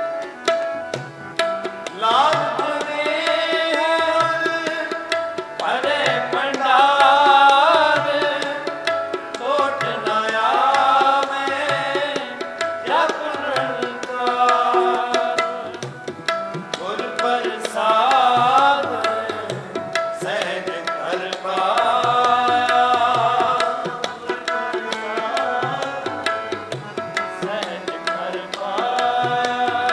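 Sikh kirtan: a man singing devotional phrases of a few seconds each, accompanied by harmonium and tabla, with the harmonium holding steady chords under the voice and the tabla keeping a steady beat.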